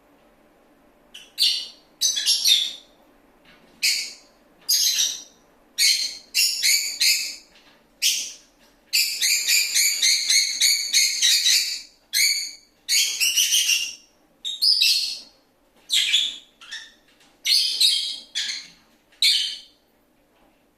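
Pet lovebird chirping: short, high-pitched chirps in bursts about once a second, with a longer run of rapid chirping from about nine to twelve seconds in.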